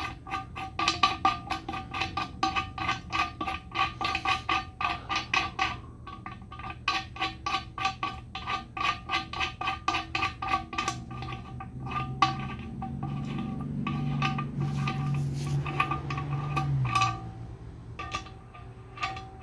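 Ratchet wrench clicking in quick runs of strokes with a metallic ring, driving a bolt home, with short pauses between runs. A low steady hum joins in for several seconds in the second half.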